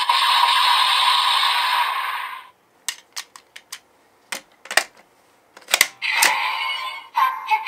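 DX Kamen Rider Gavv transformation belt toy playing an electronic sound effect through its speaker, a loud hissing sound with a steady tone, which stops after about two and a half seconds. Then come about ten sharp plastic clicks a fraction of a second apart as the toy is handled. The toy's electronic sound starts again about six seconds in.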